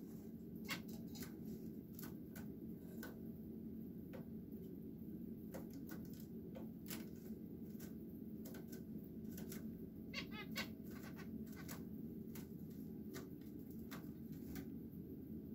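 Caged finches giving short chirps and clicks scattered through, with a quick run of repeated notes about ten seconds in, over a steady low hum.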